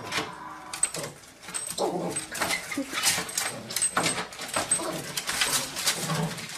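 Small dog whimpering and yipping as it jumps again and again at a door, with repeated knocks and scrabbling against the door and its letterbox.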